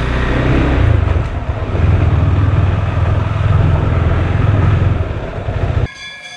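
KTM Duke 390's single-cylinder engine running as the bike is ridden slowly, its note wavering with the throttle. Near the end it cuts off and gives way to a quieter steady ringing tone.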